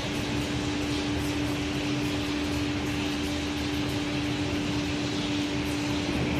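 1988 Aschersleben SZ guideway grinding machine running, its grinding head working along a machine-bed guideway: a steady hum with one strong constant tone and a hiss over it.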